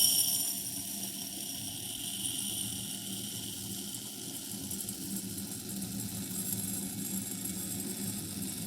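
Buckwheat grains pouring steadily into a glass bowl, a continuous rustling hiss of grain on grain and glass. A ringing from the glass bowl dies away in the first second.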